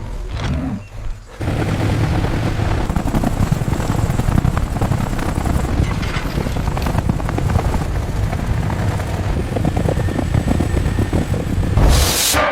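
Loud, continuous low rumble packed with rapid crackling clatter, setting in about a second and a half in and ending in a brief louder burst near the end.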